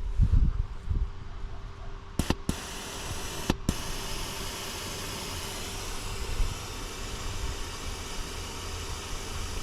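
A few sharp clicks, then a steady hiss of air being let out of all four tyres at once through the deflation hoses, as the system drops the pressure from 40 toward a 30 psi target.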